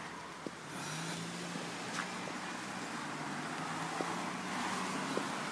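Road traffic: a steady rushing noise with a low engine hum that comes in about a second in, as a motor vehicle runs close by.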